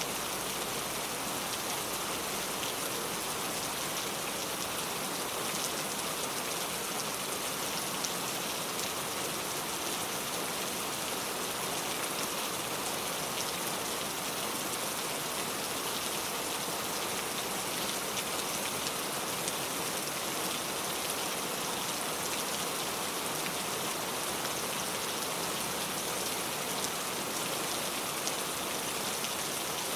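Steady rainfall, an even hiss of rain with fine drop ticks scattered through it.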